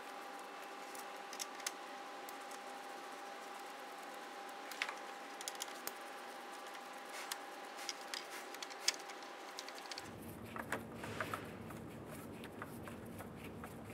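Faint small clicks and ticks of a Phillips screwdriver backing small screws out of a plastic grille trim molding, scattered and irregular, over a steady faint hum. About ten seconds in the background changes and plastic trim pieces are handled with light clicks and scrapes.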